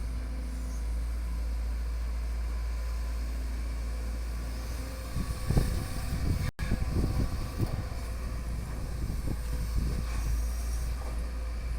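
Sumitomo SH210 hydraulic excavator's diesel engine running steadily, with irregular low knocks and thumps from about five seconds in.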